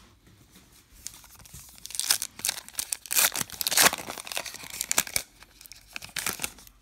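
Foil trading-card pack wrapper being torn open by hand, crinkling and ripping in short bursts that start about two seconds in and are loudest midway.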